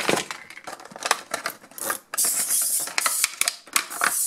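Stiff clear plastic blister packaging crinkling and clicking as a toy figure and its parts are pulled free of it, with a longer scraping rustle about two seconds in.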